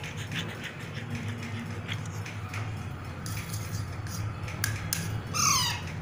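Alexandrine parakeet giving one loud squawk that falls in pitch, about five seconds in, over a steady low hum and scattered light clicks.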